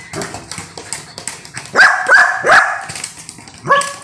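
Young golden retriever barking: three quick high barks about two seconds in and another near the end, with scattered short taps between them.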